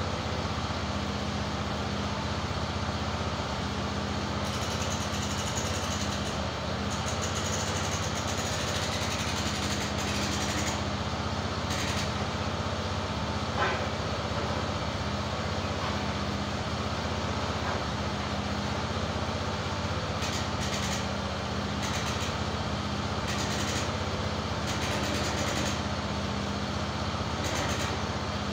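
EZ Boardwalk 40 bandsaw mill's gasoline engine running steadily without cutting, with bouts of hiss coming and going and a single sharp knock about halfway through.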